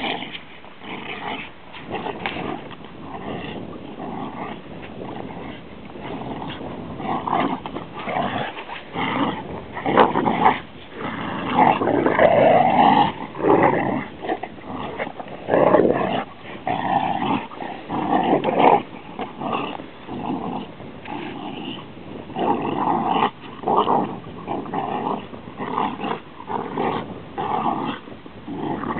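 Dogs growling in rough play, a Rhodesian Ridgeback and a black-and-white dog tussling with each other. The growls come in irregular bursts that grow louder and more frequent about a quarter of the way in.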